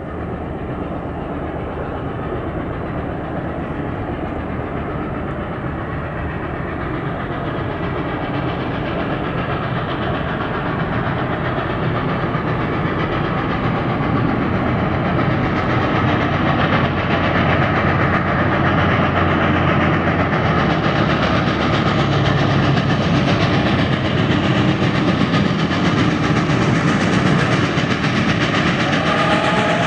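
Reading & Northern 425, a 4-6-2 Pacific steam locomotive, running toward the listener with its passenger train: a steady rumble of the engine and rolling cars that grows gradually louder as it nears. A whistle starts sounding right at the end.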